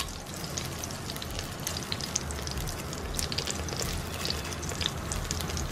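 Bay leaves frying in hot refined oil in an electric cooker's metal inner pot on its sauté setting: a steady sizzle with many small scattered crackles.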